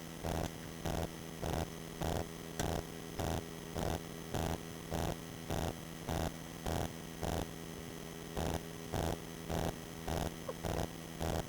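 Steady electrical hum that swells in regular pulses, a little under twice a second.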